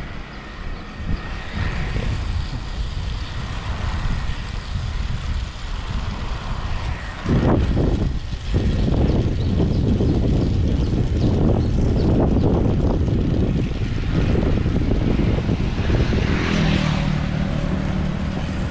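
Wind buffeting the microphone of a camera carried on a moving road bicycle: a low, rumbling rush that gets louder about seven seconds in.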